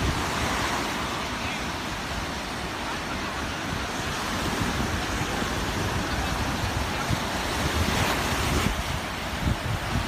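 Waves breaking on the shore in a steady rush of surf, with wind buffeting the microphone.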